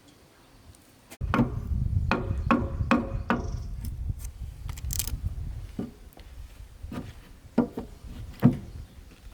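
Wood or bamboo being handled: irregular knocks and rubbing that start suddenly about a second in, over a low rumble that fades out about halfway through.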